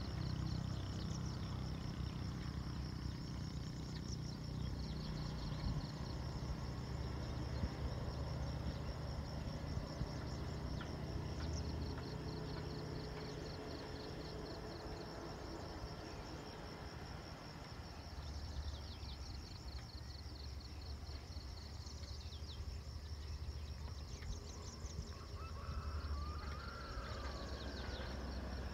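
Outdoor hillside ambience: a steady low rumble under a high, fast-pulsing insect trill, with a few bird calls in the second half.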